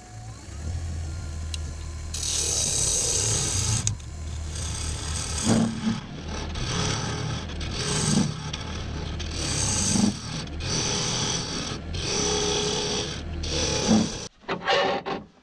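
Wood lathe running while a turning tool cuts into spinning ash, deepening a recess: a steady motor hum under repeated scraping cuts every second or two. The lathe winds down near the end.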